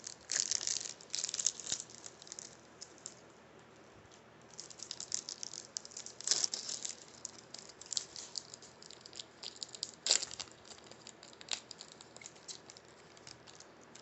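Foil trading-card pack wrapper crinkling and tearing as it is opened, with the cards being handled, in irregular bursts of crackling with a short pause about three seconds in and one sharper crack about ten seconds in.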